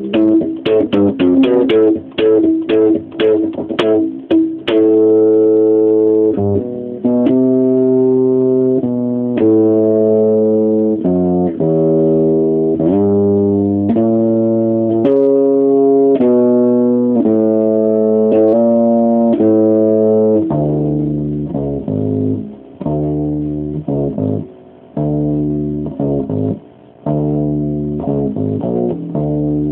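Electric bass guitar played solo, improvising riffs: quick plucked notes for the first few seconds, then slower held notes about one a second. In the last third the notes turn shorter and choppier, with brief gaps between them.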